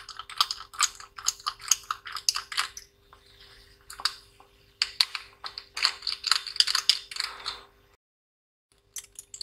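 Small screwdriver working screws out inside an opened laptop: two runs of rapid small clicks and scrapes of metal on metal and plastic, over a faint steady hum.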